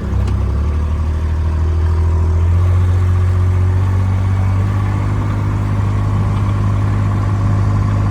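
Engine of a farm vehicle running steadily at low speed while mustering cows, its note shifting slightly in the first few seconds.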